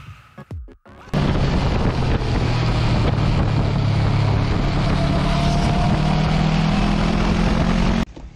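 Riding at speed: heavy wind rush over the microphone with a steady engine drone underneath. It cuts in abruptly about a second in and stops abruptly near the end.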